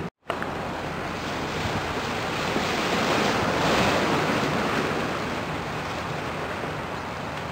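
Waves washing ashore, mixed with wind buffeting the microphone: a steady rushing that swells a little midway and then eases. The sound drops out completely for a moment right at the start.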